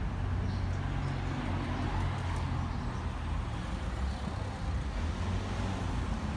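Tortoiseshell cat purring steadily close to the microphone while being stroked, a low even rumble with brief breaks as it breathes.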